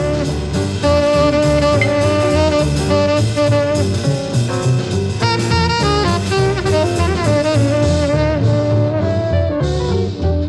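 Background jazz music with saxophone, brass and a drum kit, at a steady beat.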